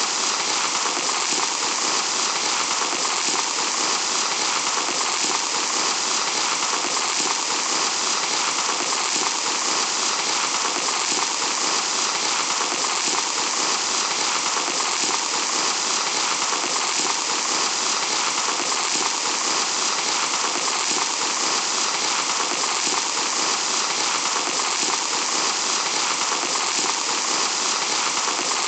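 Fine sand pouring in a steady, even hiss that never breaks or changes.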